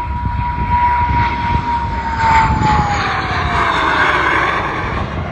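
Jet trainer aircraft making a low pass. Its engine whine holds steady, then drops in pitch about two and a half seconds in as the plane goes by, under a rush of jet noise that swells as it passes.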